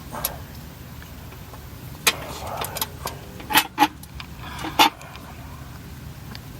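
Sharp metallic clinks and taps of bolts, nuts and small hand tools while a windage tray is bolted under an engine. The strikes are scattered, the loudest a handful between about three and a half and five seconds in, over a steady low hum.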